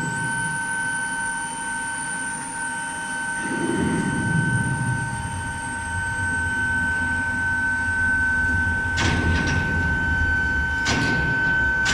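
Steady high-pitched whine of a medium-frequency induction melting furnace, with two steady tones over a low rumble. A few short scraping or knocking bursts come in near the end.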